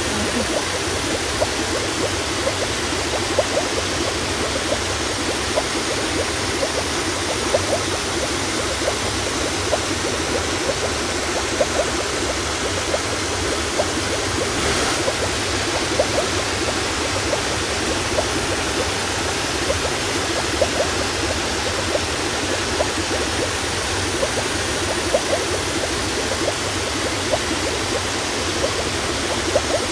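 Shallow seawater lapping and washing around shoreline rocks: a steady rushing hiss with many small splashes.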